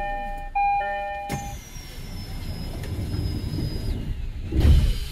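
Train door-closing chime, a chord of steady tones, sounding again about half a second in. The doors shut with a sharp clunk about a second and a half in. A faint high whine and a low rumble follow, with a louder low thump near the end.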